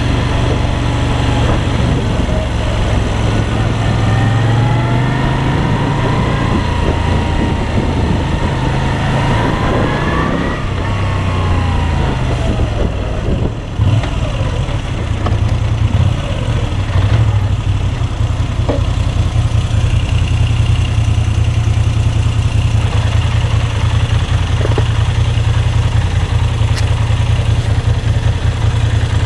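Moto Guzzi V7 III's air-cooled V-twin engine running, its pitch rising and falling for the first dozen seconds, then settling to a steady idle after a brief dip about fourteen seconds in.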